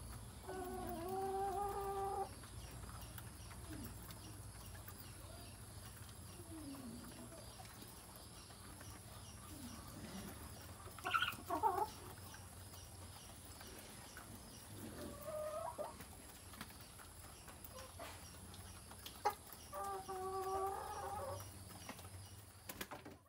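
A flock of chickens clucking and calling while they feed. Drawn-out calls of about a second and a half come just after the start, about two-thirds of the way in and near the end, with a louder, sharper call about halfway through.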